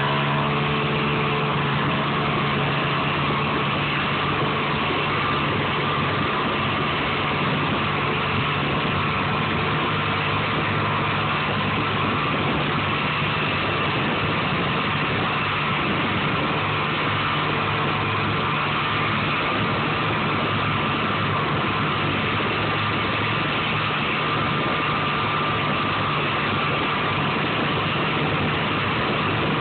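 Snowmobile engine running steadily under way, its note holding an even pitch over a constant rushing noise.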